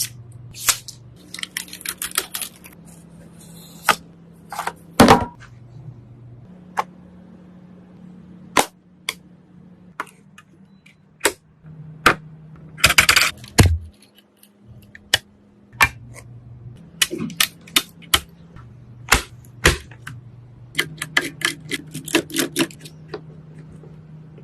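Irregular sharp clicks, taps and knocks of computer parts being handled and fitted together during a PC build, with a second-long scraping rustle about halfway through. A faint low hum that changes pitch now and then runs underneath.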